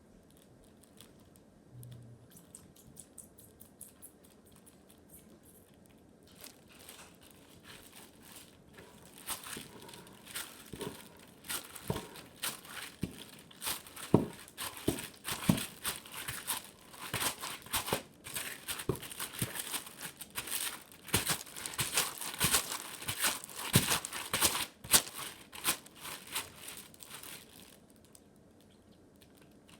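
Homemade glue slime being kneaded and pulled apart by hand, giving a dense, irregular crackling and crinkling. It starts about six seconds in, is busiest in the middle and dies away near the end.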